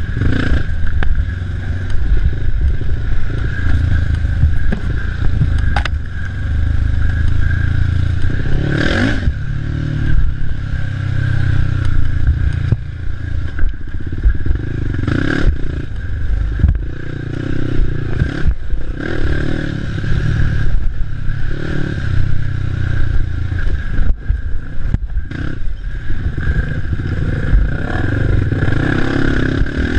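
Racing ATV engine running hard, with the throttle rising and falling and a few brief let-offs. The machine rattles and scrapes over rough off-road trail.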